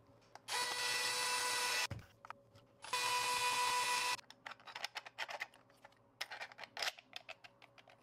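A hand-held power tool runs in two short bursts of about a second each, a steady whine over hiss, driving bolts into a 3D-printed planetary gearbox stage. After that come light scattered clicks and ticks of plastic parts and small hardware being handled.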